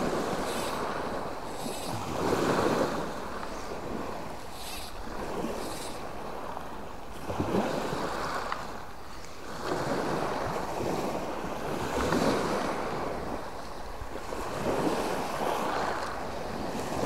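Small waves of the Mediterranean Sea breaking and washing up the shore, the surf swelling and fading every few seconds. A light wind brushes the microphone.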